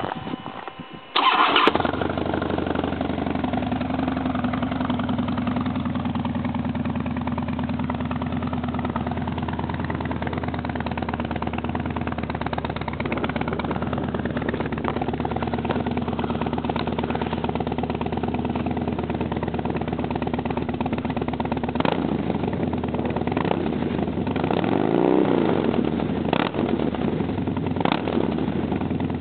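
2008 Harley-Davidson Fat Bob's Twin Cam 96 V-twin through a Vance & Hines Competition Series 2-into-1 exhaust, cranking briefly and catching about a second in, then idling steadily. Near the end the throttle is blipped, with one rev up and back down.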